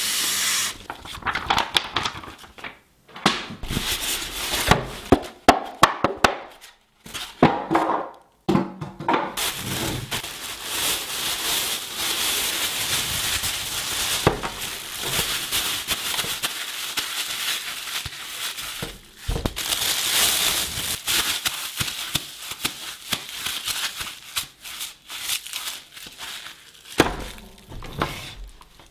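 Unboxing noise from cardboard packaging and a plastic bag. Sharp knocks and scrapes of cardboard and foam inserts come in the first ten seconds or so, then a long stretch of steady crinkling and rustling of plastic film as the appliance is drawn out of its bag.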